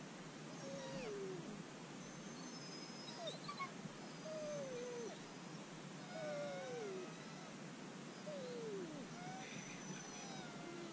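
Sled dogs whining in harness, a string of high whines, each sliding down in pitch, about six of them: the dogs are restless and eager to run while the team is held stopped.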